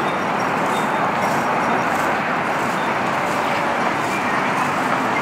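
Steady urban street noise with road traffic: an even, unbroken wash of sound with no single event standing out.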